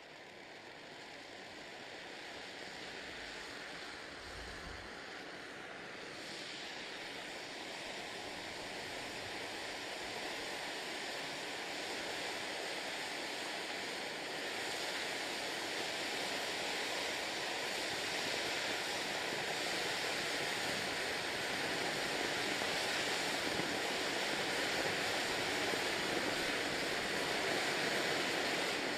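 Zink Schweizer Supervulkan No.12 firework fountain burning: a steady rushing hiss of spraying sparks that grows gradually louder, turning brighter and sharper about six seconds in.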